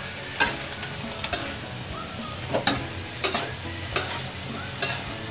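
A spatula stirring yardlong beans and pork in a frying wok, with about seven sharp clinks of the spatula against the pan over a steady sizzle.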